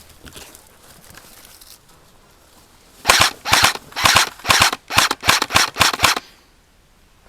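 Airsoft replica rifle firing about eight short bursts in quick succession, starting about three seconds in and lasting about three seconds.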